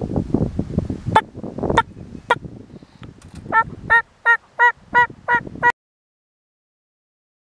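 Wild turkey calling: a few single clucks, then a run of about seven short, evenly spaced yelps. The sound then cuts off abruptly.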